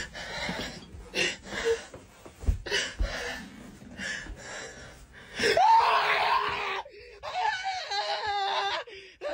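Footsteps and shuffling on a narrow stairway, then about five and a half seconds in a man's sudden loud scream of fright, followed by panicked, wavering cries.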